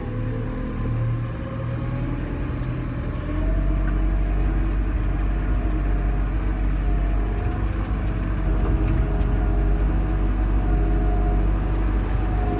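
An engine running, its pitch climbing over the first three seconds and then holding steady. A heavy low rumble comes in about three seconds in and stays.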